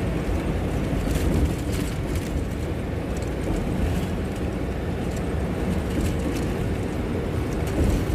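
Road vehicle noise: a steady engine and tyre rumble with scattered rattles and clicks.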